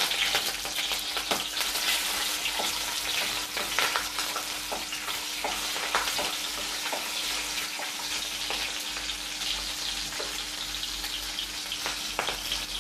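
Slit green chillies sizzling and crackling in hot oil in a stainless-steel kadai, a steady frying hiss with fine crackles throughout. A steel spatula stirs them, with a few scrapes and taps against the pan.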